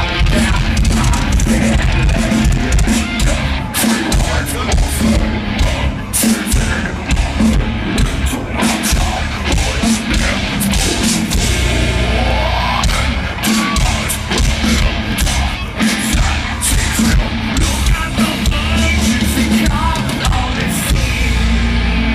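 Live nu metal band playing loud over a festival PA, heavy drums and bass with a sung vocal, picked up on a phone's microphone from far back in the crowd.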